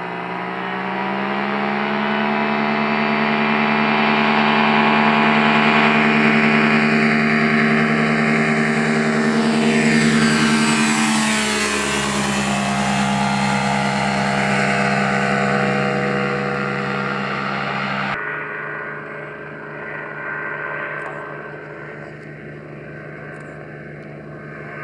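Unmanned ultralight trike's engine and propeller running at full power, growing louder as the aircraft comes close, then dropping in pitch as it passes by about eleven seconds in. About eighteen seconds in the sound drops abruptly to a fainter, more distant engine.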